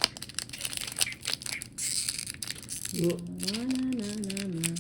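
Foil booster pack wrapper crinkling and being torn open, with rapid crackling. About three seconds in, a voice starts humming a tune over it.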